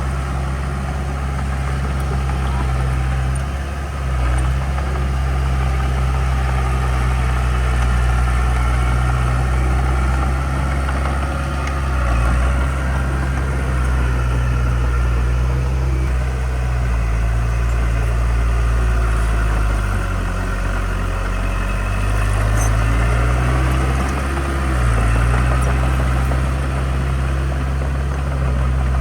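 Heavy diesel engine of earthmoving equipment running continuously. Its deep note dips and then rises again in the second half as the revs change.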